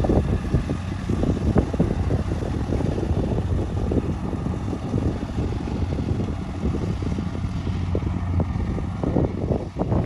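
Kubota rice combine harvester running steadily as it cuts through the paddy, a low engine hum, with gusty wind buffeting the microphone.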